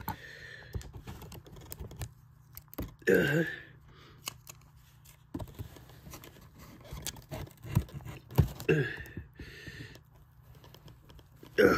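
Scissors cutting and tearing through packing tape on a small cardboard box: scattered clicks, snips, scrapes and rustles. Two short, louder sounds come about three and nine seconds in.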